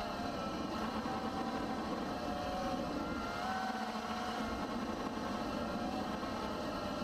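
Model plane's motor and propeller heard from on board, a steady whine whose pitch wavers a little with throttle. Wind rush and buffeting on the microphone run underneath.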